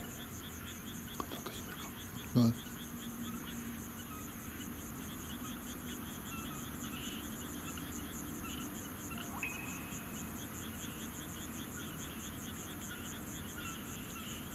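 Night insects, crickets among them, chirping steadily in a fast-pulsing chorus, with one short thump about two seconds in.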